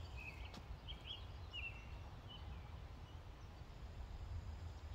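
Outdoor background: birds chirping a few short calls in the first couple of seconds, over a steady low rumble.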